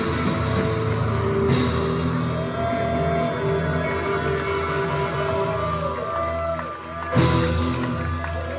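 A live rock duo plays: an amplified acoustic guitar and a drum kit. The music dips for a moment, then a loud hit comes about seven seconds in, with the guitar ringing on after it.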